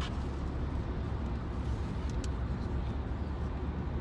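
Steady low rumble of a car heard from inside the cabin, with a couple of faint clicks, one at the start and one about two seconds in.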